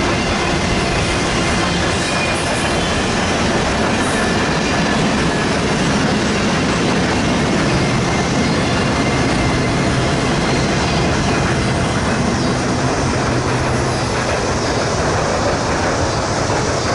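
Freight train of loaded flatcars rolling past at close range: a steady, loud rumble of steel wheels on the rails.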